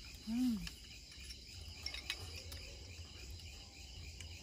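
Crickets chirring steadily, with a short voiced murmur from a person about half a second in and a few faint clinks of spoons against bowls.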